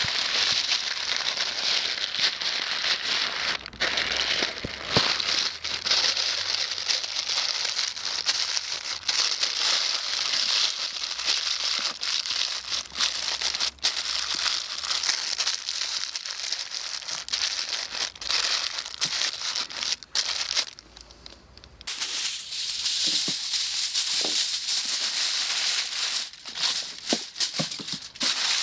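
Dense crackling and crinkling from foil-wrapped chicken cooking on campfire embers, full of sharp clicks. It drops away briefly about 21 seconds in and comes back louder.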